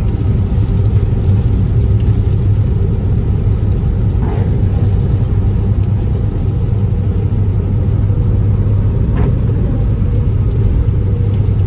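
Steady low rumble of a car on the move, engine and road noise at an even level.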